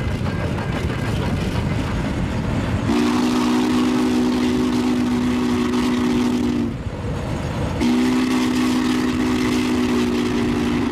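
Spokane, Portland & Seattle 700, a 4-8-4 steam locomotive, running, then sounding its steam whistle in two long blasts, several notes at once; the first comes about three seconds in and the second about eight seconds in.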